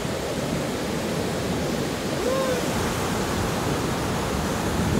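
Ocean surf breaking and washing in steadily, a constant rushing noise, with a brief voice sound about two and a half seconds in.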